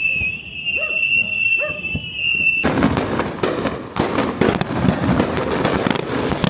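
Fireworks display: a steady, slightly falling high whistle over a few voices, then about two and a half seconds in a sudden dense crackling of many rapid small pops that keeps going.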